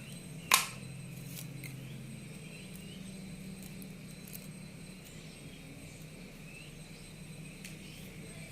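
Hand work on a network cable and RJ45 connector: one sharp click about half a second in, then scattered faint ticks, over a steady low hum.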